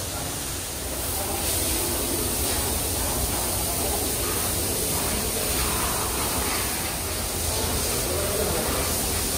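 Steady hissing background noise with faint voices now and then.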